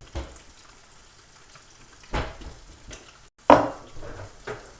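Several sharp clattering knocks of kitchenware, the loudest about three and a half seconds in, over a faint steady sizzle of food frying in a pan.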